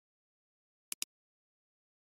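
Computer mouse button clicking: two sharp clicks about a tenth of a second apart, about a second in, against digital silence.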